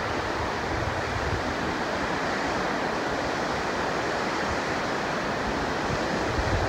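Steady, even rush of mountain water, a river or waterfall carrying across the valley.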